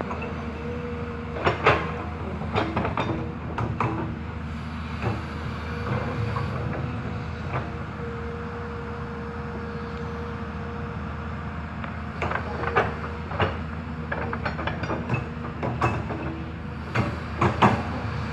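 Hyundai HX210S excavator's diesel engine running steadily, with a whine that comes and goes. Bursts of sharp clanks and knocks come through it: three clusters in the first few seconds, one about halfway, and several near the end.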